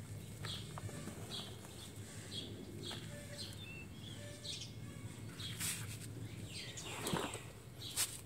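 A small bird chirping over and over, roughly one or two short chirps a second, over a steady low hum. Near the end come louder rustles and knocks as the coarse coconut-chip potting mix and the plastic pot are handled.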